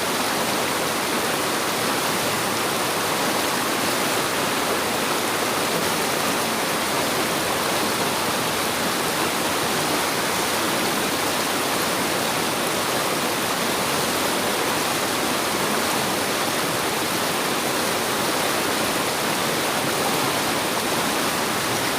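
Steady rush of flowing river water, an even hiss that neither rises nor falls.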